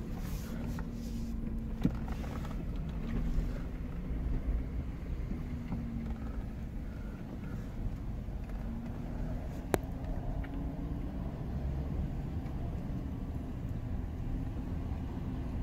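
Steady low rumble of a GM hybrid SUV's 6.0-litre V8 and its road noise, heard from inside the cabin while creeping along at low speed, with a faint wavering hum. The engine runs smoothly, without the low-speed stumble it once had. A sharp click comes about two seconds in and another near ten seconds.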